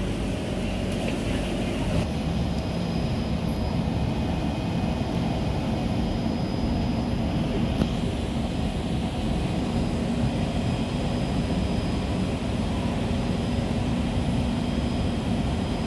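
Steady drone inside a stationary SMRT C151 train car standing with its doors open at an underground platform: the hum of the car's air-conditioning and on-board equipment, even in level throughout.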